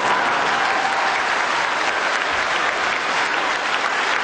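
Theatre audience applauding, steady dense clapping.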